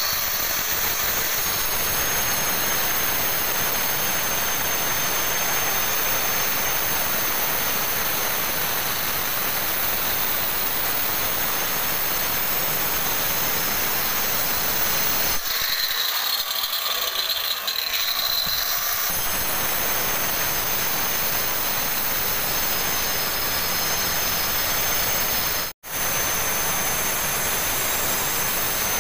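Handheld marble cutter with a stone-cutting disc cutting into a granite slab: a loud, steady grinding whine. For a few seconds past the middle the deep part of the sound falls away and it thins out, then the full cutting sound returns; it breaks off for an instant about three quarters of the way through.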